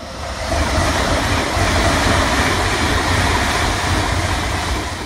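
A train passing: a steady rushing rumble that builds over the first second, holds, then cuts off abruptly near the end.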